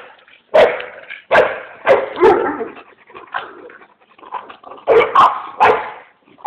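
Dogs barking in short, sharp barks, loud during the first couple of seconds and again around five seconds in, with fainter barks in between.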